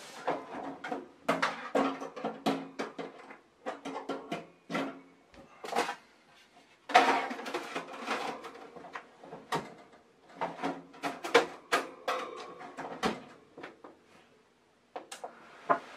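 Clicks, knocks and rattles of green coffee beans and metal parts as the Behmor roaster's wire mesh drum is loaded with beans and fitted, with the chaff tray, into the roaster. The handling goes quiet shortly before the end.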